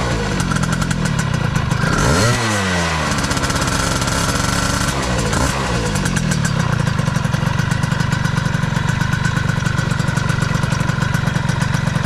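Honda Dio two-stroke scooter engine running through a new aftermarket exhaust pipe. It is revved up and back down about two seconds in, blipped lightly again around five seconds, then settles to a fast, even idle.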